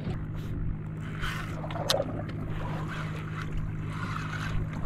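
Steady low hum of the panga's Suzuki 140 outboard idling, with a few sharp clicks from rod-and-reel handling, the loudest about two seconds in.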